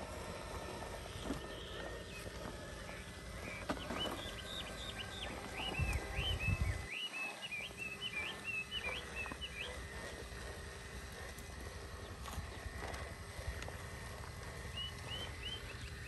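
Outdoor ambience with a small bird singing a quick run of high chirps about four seconds in, and a few more chirps near the end. Light knocks come now and then, with a brief low rumble of wind on the microphone around six seconds.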